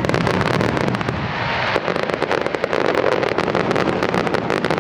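Starmine fireworks barrage: a dense, unbroken run of shell bursts and crackling reports, many a second.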